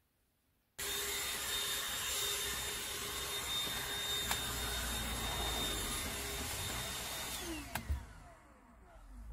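Handheld vacuum cleaner switched on about a second in and running steadily with a high whine while it cleans the car's footwell. Near the end it is switched off and spins down with a falling whine.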